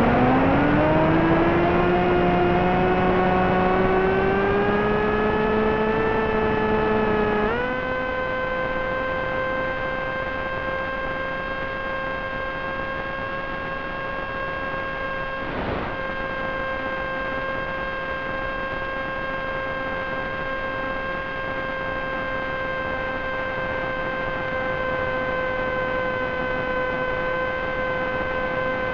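Brushless motor and propeller of a Wing Wing Z-84 flying wing whining with throttle. The pitch climbs slowly over the first several seconds, jumps up sharply about seven seconds in as power comes up to cruise, then holds one steady tone over a hiss of noise. There is a single short click midway.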